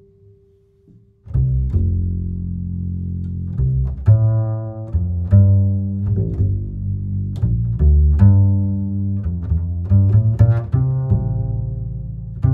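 Background music: after a brief near-quiet gap, low held bass notes come in about a second in, with plucked notes in a steady rhythm over them.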